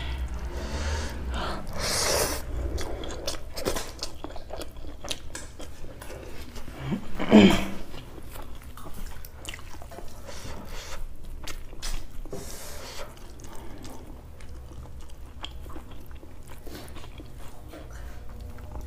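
Close-miked chewing and wet mouth sounds of a person eating jeera rice and curry by hand, with many small smacking clicks. About seven seconds in comes one louder, brief throat sound that rises in pitch.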